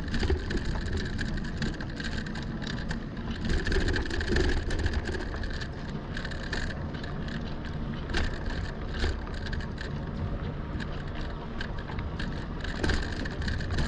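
Lectric XP fat-tire e-bike rolling along an unpaved trail: a steady rumble from the 4.5-inch tyres with constant crackling and rattling over the ground, and an on-and-off high whine.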